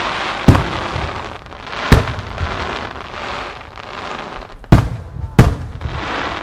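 Aerial firework shells bursting in the sky: four sharp booms, two close together near the end, over a steady noisy wash between them.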